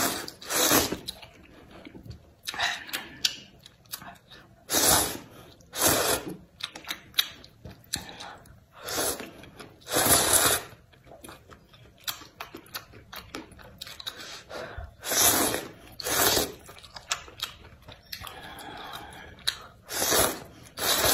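Luosifen rice noodles being slurped up out of spicy broth: about ten loud, hissing slurps at irregular intervals a second or several apart, with quieter mouth sounds between them.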